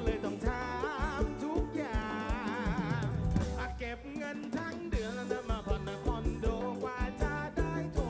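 Live band music through a large outdoor concert PA, heard from the crowd: steady drum hits under a wavering sung melody, with a falling low note about three seconds in.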